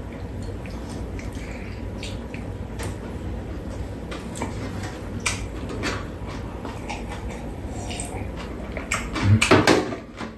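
Two people eating kimbap and drinking from mugs at a metal tray table: small clicks and knocks of mugs and dishes against the tray over a steady low room hum, with a brief louder noise near the end.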